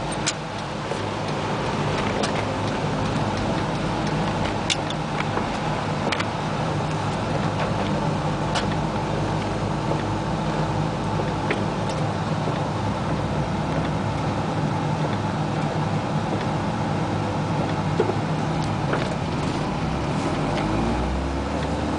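Cabin of a 1988 Isuzu Trooper on the move on wet roads: the engine runs steadily under a haze of tyre and road noise, with scattered sharp clicks. The engine note rises near the end.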